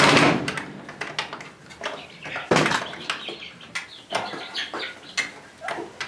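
Cordless drill driving a screw into the wooden door frame, stopping a moment in; then scattered knocks and clicks of metal door hardware being handled against wood, the loudest about two and a half seconds in.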